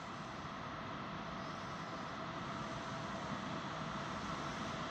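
Train approaching a station platform from a distance: a steady rumble with a faint high steady note, slowly growing louder.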